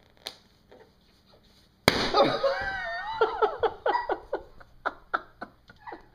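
A long twisty balloon bursting with a single sharp pop about two seconds in, after quiet scratching. A person's voice rises right after it and breaks into a run of short bursts of laughter.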